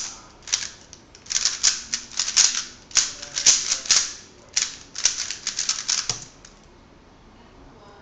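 3x3 speedcube being turned at speed: flurries of rapid plastic clicking and clacking as the layers snap round, with brief pauses between flurries. The clicking stops about six seconds in, at the end of the solve.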